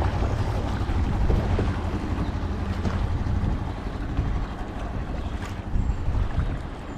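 Wind rumbling on the microphone over sea water lapping and washing.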